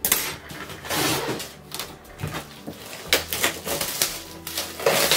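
Packaging rustling and crinkling as it is pulled off a wooden photo frame, with clicks and knocks as the frame is handled, in irregular bursts. Soft background music underneath.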